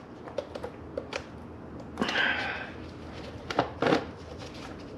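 Hands working the old, hardened valve cover gasket out of a VW VR6 valve cover: small clicks and scraping of the brittle gasket against the cover, with two sharper knocks a little past the middle.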